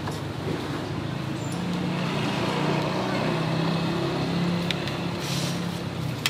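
Road traffic: a motor vehicle's engine running close by, growing louder through the middle and easing off near the end.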